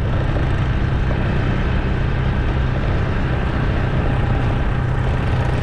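Steady vehicle engine and road noise, a continuous low drone with a faint hum.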